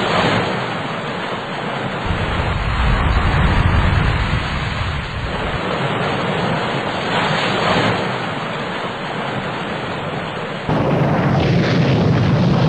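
Loud, rushing rumble of noise that surges a few times. About two-thirds of the way through it cuts abruptly to a fuller, deeper rumble.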